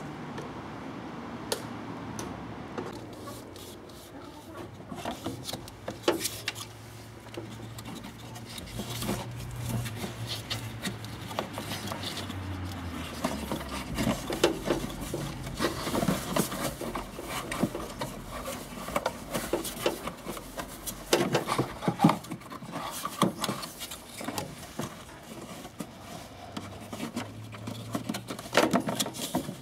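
A new pleated paper cabin air filter being worked into the plastic filter housing of an Opel Corsa C: irregular rubbing and scraping of the filter's edges against the housing, with scattered sharp plastic clicks and knocks as it is pushed into place.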